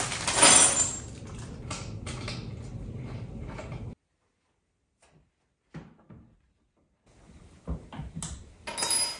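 Handling and assembly noises of wooden counter stools: a loud scraping rush about half a second in, then clatter and knocks. The sound cuts out suddenly to silence about four seconds in, and scattered knocks and a thump follow later.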